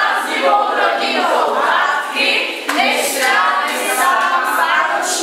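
A group of young voices singing together without instruments.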